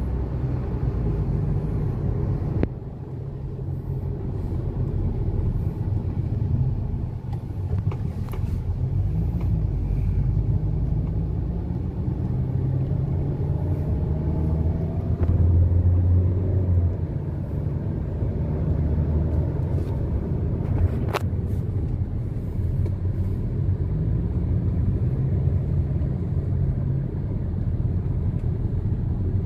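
Car engine and road noise heard from inside the cabin on a slow drive: a steady low rumble that swells for a moment about halfway through, with a sharp click about two-thirds of the way in. The engine has new ignition coils and spark plugs, fitted to cure a misfire, and the driver is sure it now runs fine.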